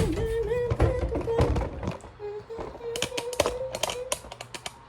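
A quick run of knocks and taps, like small objects being handled and set down, over a faint wavering hum.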